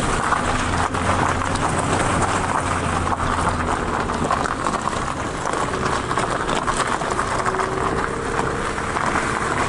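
Car tyres crunching steadily over a gravel track at low speed, with the car's engine humming low underneath.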